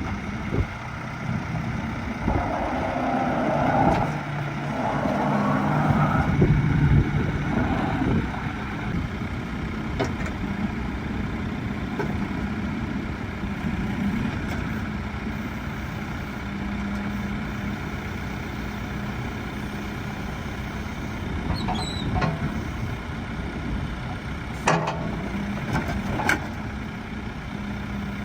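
Case 580N backhoe loader's diesel engine running steadily, swelling louder for several seconds near the start. A few sharp knocks come near the end.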